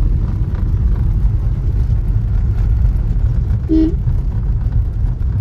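Steady low rumble of a moving road vehicle's engine and road noise, with a brief pitched tone about three-quarters of the way through.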